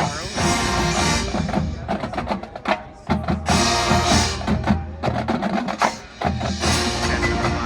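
Marching band playing: sustained brass and wind chords over a drumline, with many sharp percussion strikes and two short breaks in the sound.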